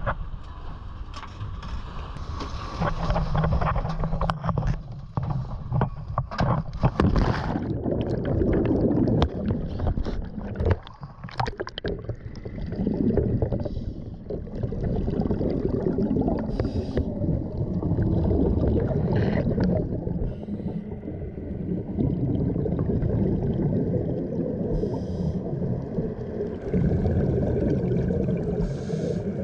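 Dive boat running over choppy water, with wind on the microphone and gear knocking and clattering. Then, underwater, a dense low rumble of rushing bubbles and a scuba diver's regulator breathing, with short hisses every few seconds and bubbles gurgling past.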